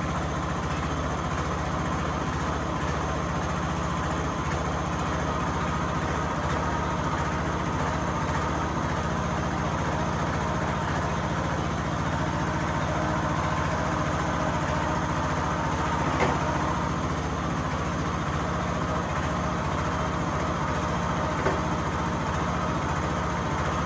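Wheel Horse lawn tractor engine running steadily at an even speed with no revving, sounding in good health after two years of sitting, started without the carburettor being cleaned. Two light clicks come over it later on.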